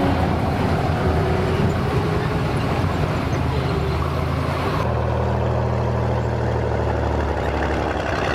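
Nashorn tank destroyer's Maybach HL 120 V12 petrol engine running, heard close to the hull. About five seconds in the sound changes to a steadier low drone.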